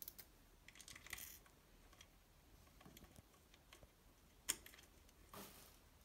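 Near silence with faint handling clicks as a small screw and washer are picked up and set by hand into a metal bracket, with one sharper click about four and a half seconds in.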